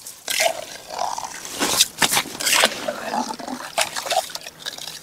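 Slush and broken ice being stirred and scooped out of a freshly drilled ice-fishing hole with a stick: wet sloshing broken by irregular sharp scrapes and clinks of ice.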